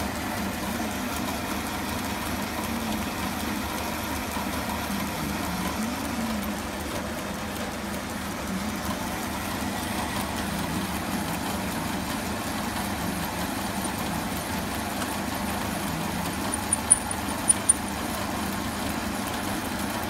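A 1904 belt-driven metal lathe running steadily while turning down a bar, with a wavering hum from the drive. A few sharp clicks come near the end.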